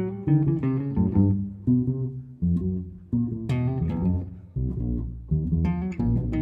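Jazz duo of archtop guitar and upright double bass playing: a running line of plucked guitar notes over a plucked bass line.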